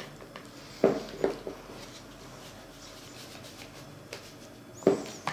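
A fork stirring cornmeal into warm water in a glass mixing bowl, with sharp knocks against the bowl: two about a second in and a third near the end.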